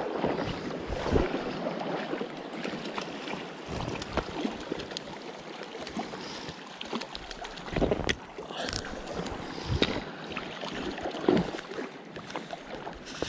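Steady rush of a shallow river running over a riffle, with wind on the microphone and a few short knocks and splashes close by.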